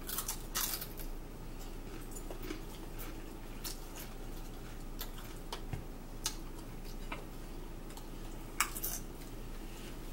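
Eating at a table: scattered small clicks, crunches and brief rustles as chips are picked from a plate and chewed, the loudest about half a second in and again near the end.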